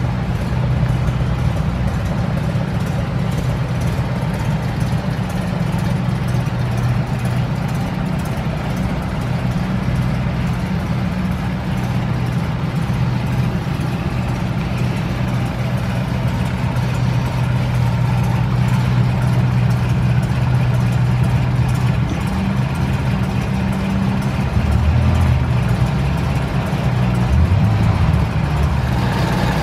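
Alfa Romeo Giulia 1600 Spider Veloce's twin-cam four-cylinder engine idling steadily.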